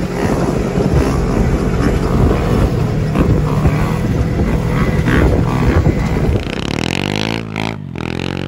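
Dirt bike engine running as the bike rides over dirt, a steady rough drone. About six seconds in the sound cuts to another dirt bike revving up and back down, a clear rising then falling engine note, as its rear wheel throws sand.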